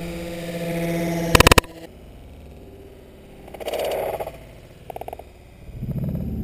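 A model plane's engine running steadily, then a loud crash about a second and a half in as the plane flips over and slams upside down onto asphalt; the engine stops right after the impact.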